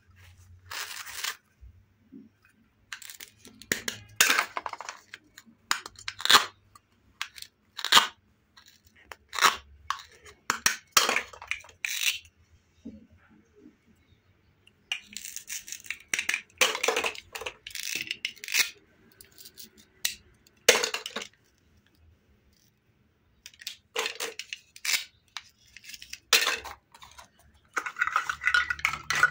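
Plastic toy play-food pieces handled, their velcro pads ripping apart and the hard plastic halves clacking together, in scattered short bursts separated by pauses.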